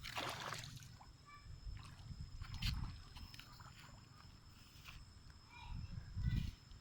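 Water splashing and sloshing in a few short bursts as a young monkey plays in it, the first burst right at the start and another near the end.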